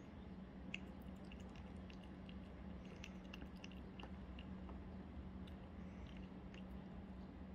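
Maltese dog eating tomato pieces from a ceramic bowl: faint, irregular wet chewing and clicking bites, a few a second. A steady low hum runs underneath.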